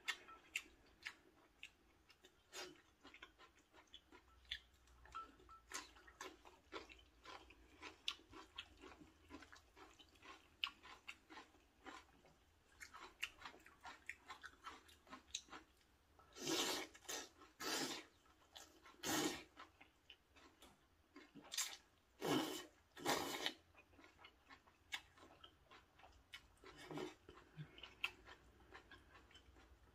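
Close-up mouth sounds of a person eating noodles in broth: soft, wet chewing and small clicks throughout, with a few louder slurps a little past halfway.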